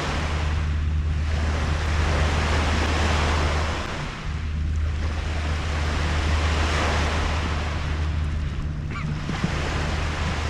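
Lake Michigan waves washing onto a sandy beach, the surf swelling and fading every few seconds, with wind on the microphone and a steady low hum underneath.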